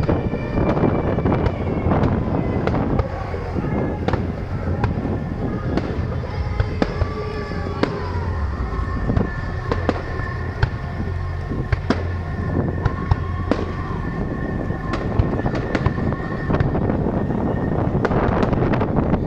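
Fireworks display: a dense, irregular run of bangs and crackles from exploding shells, many each second, over a continuous low rumble.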